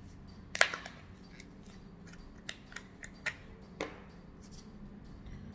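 Plastic cap of an e-liquid dropper bottle being twisted off, making a sharp click about half a second in, then about four lighter clicks.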